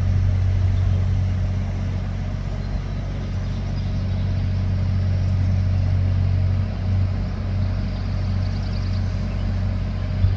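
An engine running steadily: a low, even hum that dips briefly about two-thirds of the way through, with a single short knock near the end.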